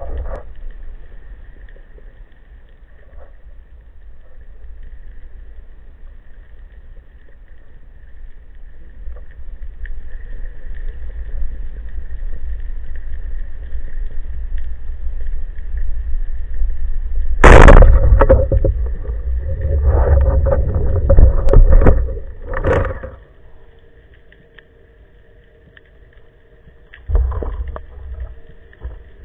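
Underwater sound picked up by a diver's camera: a low rumble of water and movement that grows louder, then a sharp crack about two-thirds of the way through, followed by several seconds of loud, choppy noise that stops suddenly, with another short burst near the end.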